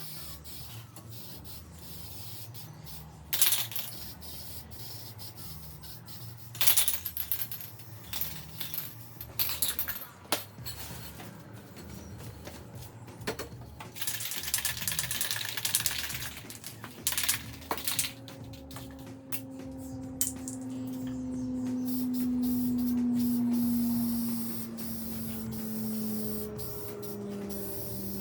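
Cleaning work with a pressure washer: scattered knocks and clatter, a spray hiss lasting about two seconds around halfway through, and in the last third a low hum that slowly falls in pitch.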